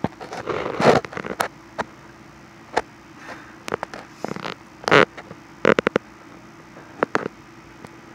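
Irregular short scrapes, rustles and clicks close to the microphone, dense in the first second and a half, then one about every second with a quick run of several around the middle, over a steady low hum.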